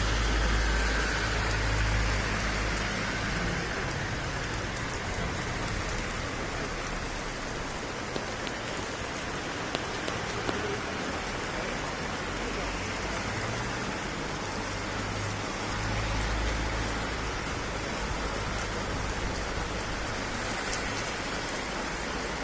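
Steady rain falling, an even hiss of drops on hard surfaces. A low rumble swells under it near the start and again about two-thirds of the way through.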